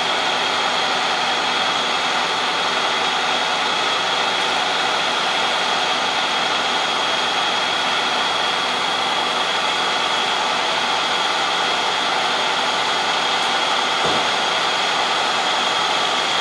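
Fire engine running steadily at the scene, its engine held up to drive the water pump for the hose lines, a loud even drone with a steady high whine.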